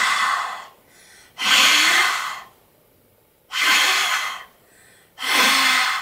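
A woman breathing hard through an open mouth as a deliberate breathing exercise: four loud, breathy breaths of about a second each, evenly spaced, with a faint touch of voice in some of them.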